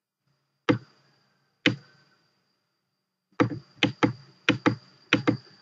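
Computer mouse clicking: two single clicks, then a run of quick clicks, mostly in close pairs, over a faint steady high-pitched tone.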